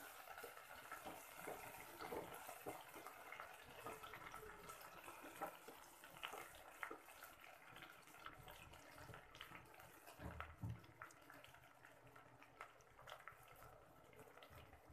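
Faint sizzle and crackle of fresh mint leaves frying in hot oil with whole spices in a pan, with a few scrapes of a wooden spatula near the start; the crackling thins out as it goes on.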